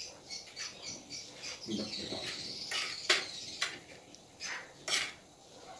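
Metal spoon cutting through a pancake and scraping on a plate: a high squeak about two seconds in, then several sharp clinks and taps.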